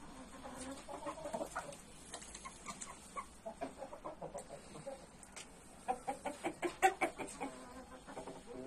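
Game rooster clucking: a short low call about half a second in, scattered soft clucks, then a quick run of louder clucks about six to seven and a half seconds in.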